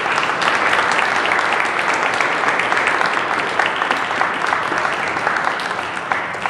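Audience applauding at the end of a talk, a steady spread of many hands clapping that starts just before and thins out near the end, with a hall's echo.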